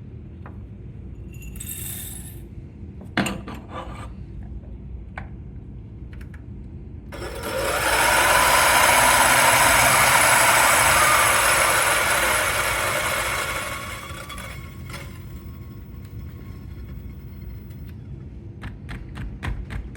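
Turin DF83V flat-burr coffee grinder, set to 700 RPM, grinding a 21-gram dose of light-roast beans: a loud, dense crunching over the motor's steady whine for about seven seconds, then the motor running on briefly as the burrs empty. A few clicks come before it, and a quick series of taps comes near the end.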